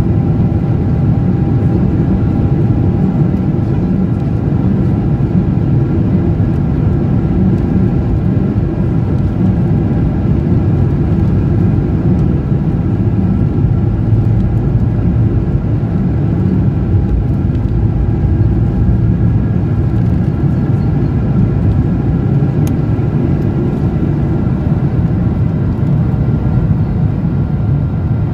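Jet airliner's engines at takeoff power heard from inside the cabin: a steady, loud noise with several steady whining tones above it, as the plane rolls down the runway and lifts off.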